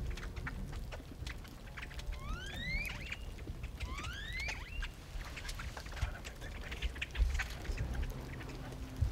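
A feeding flock of great-tailed grackles and other blackbirds calling: a steady run of clicks and chatter, with two rising whistles that level off at the top, about two and four seconds in.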